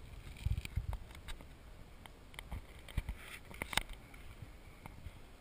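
A handful of sharp, scattered cracks of the hard pelota ball being struck and bouncing during an errebote (Basque rebote) game, with a few low thumps in the first second.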